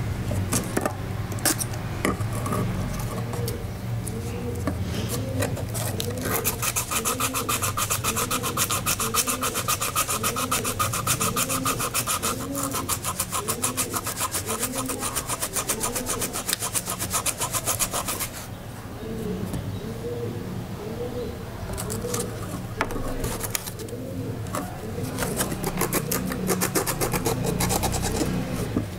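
Sandpaper rubbed back and forth along the rusted steel blades of small spring-handled sewing snips, scraping off rust in rapid strokes. The scraping is strongest and fastest from about six seconds in to about eighteen seconds, and lighter before and after.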